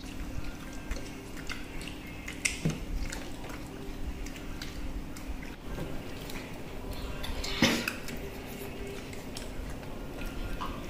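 Children eating roast chicken with their hands: small clicks, smacks and crinkles of the paper wrapper over a steady low hum, with a sharper knock about two-thirds of the way through. Water runs from a dispenser into a cup in the middle.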